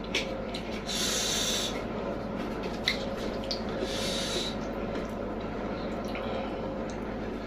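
Close-up mouth sounds of a person eating: wet chewing and lip smacks with small clicks, and two short airy hisses, about a second in and about four seconds in.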